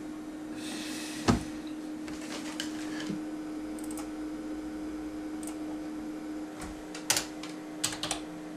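A few scattered keystrokes and mouse clicks on a desktop computer, with a louder cluster near the end, over a steady low hum. A single sharp knock about a second in is the loudest sound.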